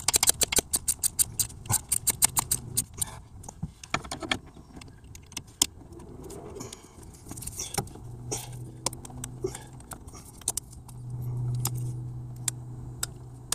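Socket-wrench ratchet clicking in quick runs as a spark plug is tightened into the cylinder head, then only a few scattered clicks. A low steady hum comes in about eight seconds in.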